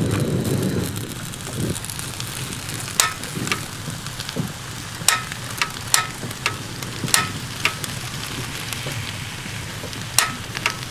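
Portable butane camp stove's control knob being turned to light it, giving about ten sharp igniter clicks, many in pairs about half a second apart, over a steady hiss.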